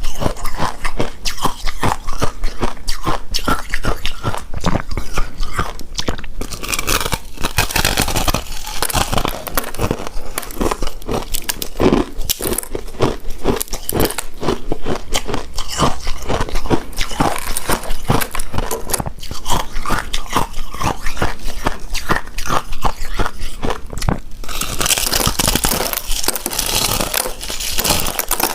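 Close-miked mouth sounds of someone biting and chewing a soft, chewy coconut-coated rice cake: dense, sticky clicks and crackles, with two longer crackly stretches, one about a quarter of the way in and one near the end.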